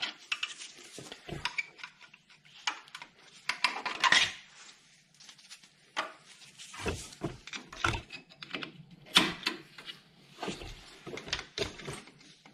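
Irregular metal clicks, scrapes and clinks as a screwdriver prises the wire spring clip off a car's front disc brake caliper and works at the caliper.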